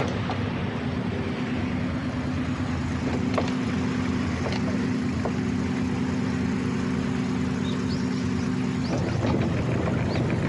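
Kubota U-30-5 compact excavator's diesel engine running steadily, with scattered clicks and creaks from the machine. Near the end the engine note changes.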